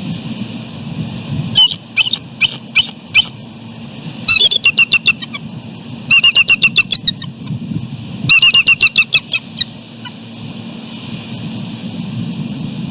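Bald eagle trumpeting: a few spaced, high piping notes, then three quick runs of rapid staccato chattering notes, over steady wind noise on the microphone. The uploader takes the calling as a warning to an intruding bird that the territory is taken.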